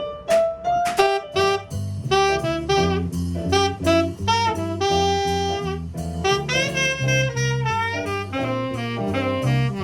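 Jazz tenor saxophone playing a solo line of quick melodic phrases, with an upright bass walking underneath and light percussion.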